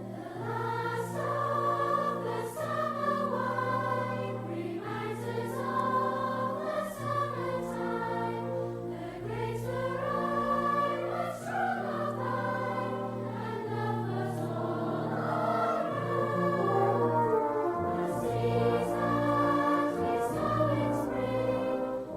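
Background music: slow choral singing over sustained brass and a steady bass.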